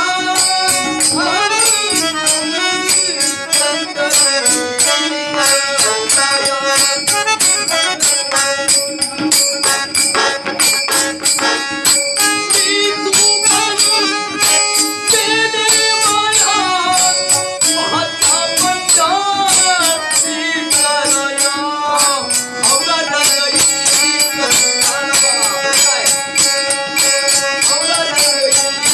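Marathi devotional folk song: a sung melody gliding and bending in pitch over fast, steady percussion with jingling cymbals.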